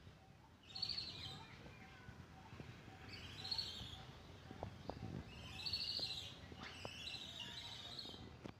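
Small birds chirping in four short bouts of quick high chirps, faint against a quiet background.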